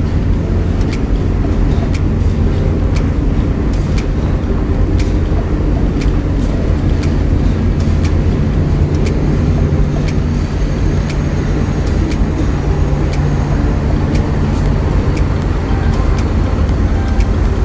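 Wind rushing over the microphone, with a loud, steady, low rumble underneath and a few faint clicks.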